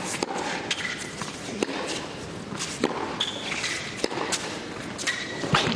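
Tennis rally on an indoor hard court: racket strings striking the ball in turn with sharp pops, and shoes briefly squeaking on the court about halfway through.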